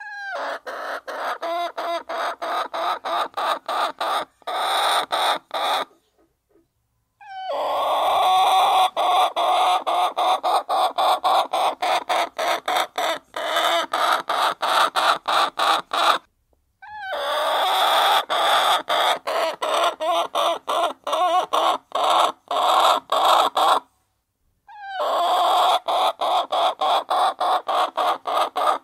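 A flock of hens clucking together while feeding. The sound is chopped by brief regular gaps several times a second and cuts out completely three times for about a second.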